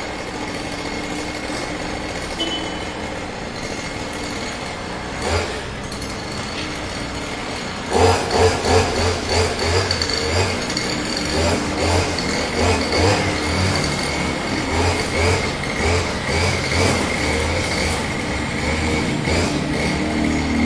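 Lawn mower engine running steadily, then from about eight seconds in louder and uneven, pulsing several times a second.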